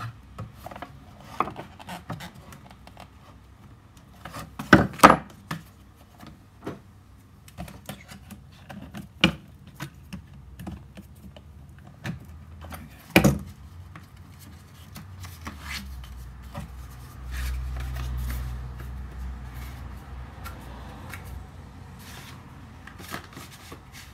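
Metal clicks, clinks and knocks as a Stihl HT-KM pole pruner's chainsaw bar and chain are handled on a wooden workbench. Louder knocks come about five seconds in and again about thirteen seconds in, with a low rumble through the second half.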